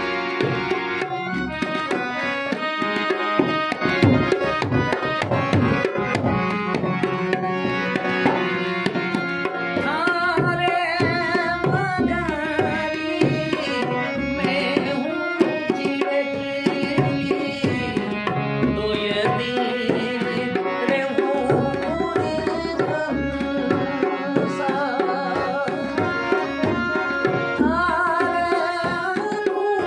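Rajasthani folk song: a harmonium plays steady held notes, with a hand drum keeping a running rhythm. A man's voice comes in with ornamented, wavering phrases about ten seconds in and again near the end.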